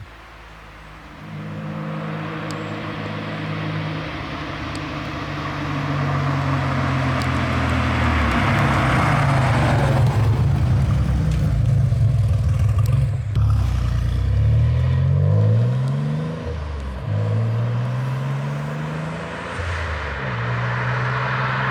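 Nissan 300ZX turbo running with its exhaust cutout open, getting louder over the first several seconds. The revs then climb in several rising pulls that break off, like gear changes under acceleration.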